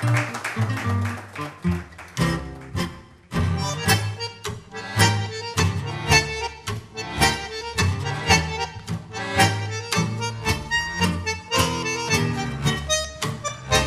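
Tango played by a trio of bandoneon, guitar and double bass, with sharply accented beats. About three seconds in the music drops briefly, then the full ensemble comes back in.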